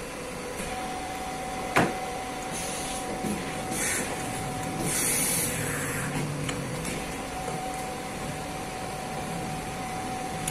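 Press brake running with a steady mechanical hum and a thin steady tone, one sharp metallic knock about two seconds in, and a few short hissing bursts around the middle.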